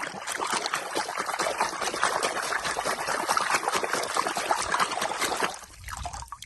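Water running and splashing over toy cars as they are washed clean of dirt; the splashing stops about five and a half seconds in.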